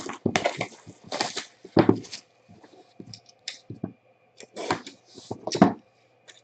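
Hands handling a shrink-wrapped cardboard box of trading cards as it is turned over and cut open with a box cutter: irregular rustles, scrapes and taps of plastic wrap and cardboard. The loudest bursts come about two seconds in and again near the end.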